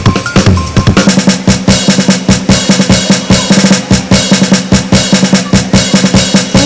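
Background music: a drum-led track with a fast, steady beat.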